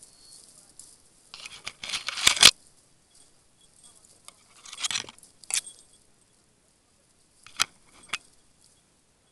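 Dry twigs and branches of dense scrub crackling and snapping as something forces through them. The loudest rush of crackling comes about two seconds in, another around five seconds, and two sharp snaps come near the end.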